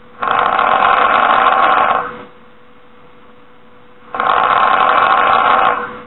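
A person snoring: two loud snores about four seconds apart, each lasting nearly two seconds, with a faint steady hum in the pauses between them.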